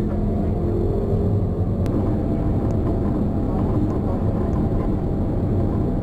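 Inside a high-speed light-rail tram running along its track: a steady low rumble of wheels and running gear with a faint motor hum, and a single sharp click about two seconds in.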